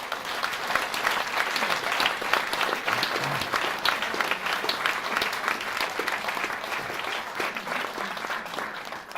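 Audience applauding: dense clapping that swells in the first second, holds steady, and eases off slightly near the end.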